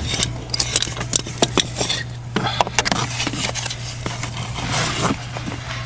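Plastic parts and wiring being handled and fitted under a car dashboard: irregular scraping, rubbing and small clicks as the blower-motor cover is worked into place, over a steady low hum.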